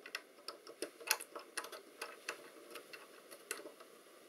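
Faint, irregular small clicks and taps as hands work at the knob and shaft assembly of a navigation receiver's front panel. The clicks come at uneven intervals, the loudest about a second in.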